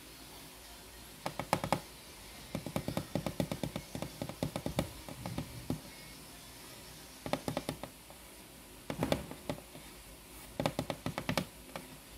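Fingers tapping and scratching on a cardboard box in several short bursts of quick taps, about eight to ten a second, with pauses between bursts.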